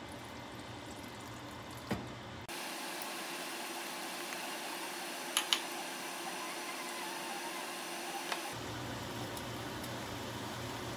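Steady kitchen background noise at the stove, with a few short sharp clicks of a spatula against a frying pan. The background changes abruptly twice.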